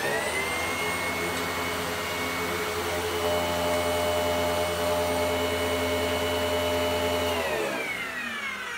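Vacuum cleaner motor running at full speed with a steady high whine, then switched off about seven and a half seconds in and winding down in a falling whine. The machine is giving little suction, for a reason the owner cannot find.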